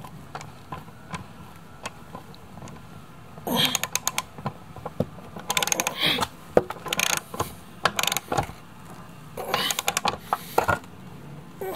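A hand tool turning a bolt on a Kugoo M3 Pro electric scooter: quick runs of small metallic clicks and clinks. The first run starts about three and a half seconds in and lasts a few seconds, and a shorter one comes near the end.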